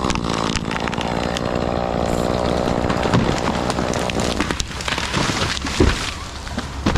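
Chainsaw running under load at a steady speed while cutting wood. The engine drops off about two-thirds through, and two short knocks follow near the end.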